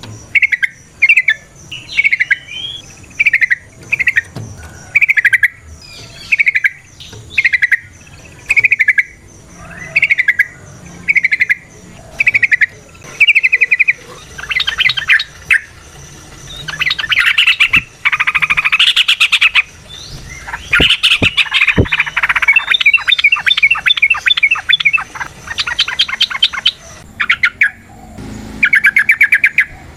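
Yellow-vented bulbul singing: short bubbling phrases repeated about once a second, then from about halfway a faster, denser run of rapid repeated notes, the long 'ropel' song.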